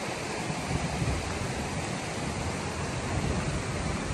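Steady rushing outdoor noise with low, uneven rumbles underneath.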